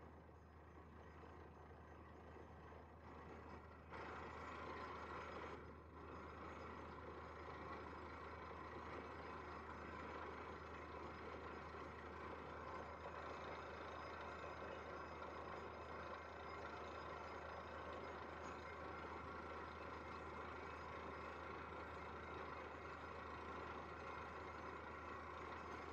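Borewell drilling rig running steadily, its engine and compressor droning while water is blown out of the freshly drilled bore. The sound steps up a little about four seconds in.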